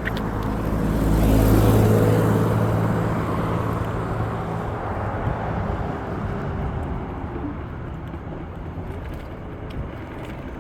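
Steady rushing wind and road noise from riding an electric scooter, with a motor vehicle's engine hum swelling and then fading over the first few seconds.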